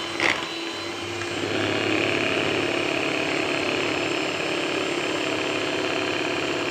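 Electric hand mixer running steadily, its twin beaters whipping cream in a bowl while condensed milk is added. About a second and a half in, the motor sound grows louder and harsher and stays that way.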